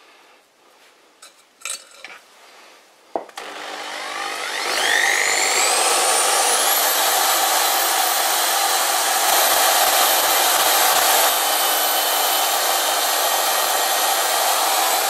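Tool-post-mounted electric drill spindle switching on about three seconds in and spinning up with a rising whine, then running steadily at high speed while its drill bit is fed into a lathe's screw-on spindle arbor to cross-drill a hole.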